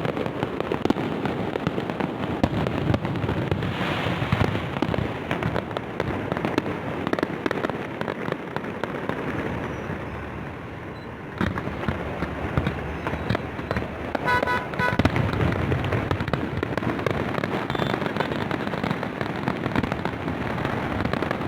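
Aerial fireworks display: a dense, continuous run of bangs and crackles over a low rumble of bursts. It eases briefly about halfway through, then picks up again.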